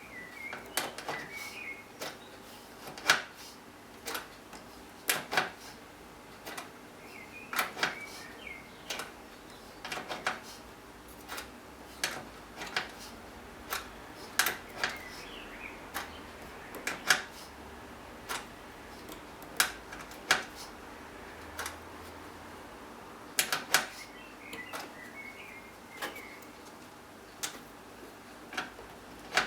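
Irregular sharp clicks and taps from installing motherboard standoffs in a PC case, over a faint steady hum.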